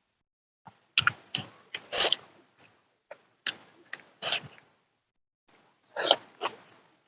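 Close-miked eating: a dozen or so short, irregular bite and chewing sounds with quiet gaps between them, the loudest about two and four seconds in.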